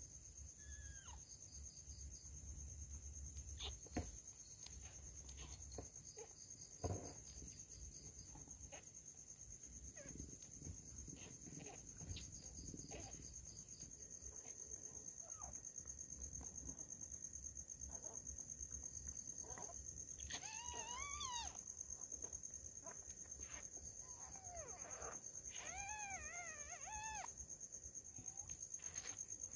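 Newborn kittens mewing faintly: two short, high, wavering cries about two-thirds of the way through, a few seconds apart. Under them runs a steady high chirr of crickets, with a couple of soft knocks in the first few seconds.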